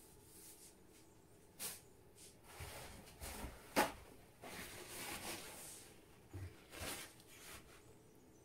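Faint handling sounds of watercolour painting materials: a few light knocks, the loudest near the middle, and soft rustling between them.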